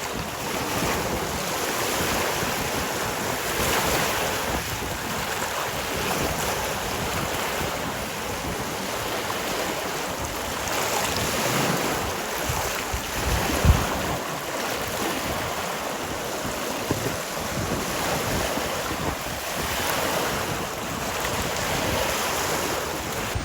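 Waves washing onto a beach, swelling and ebbing every few seconds, with wind buffeting the microphone in low rumbling gusts, the strongest about 14 seconds in.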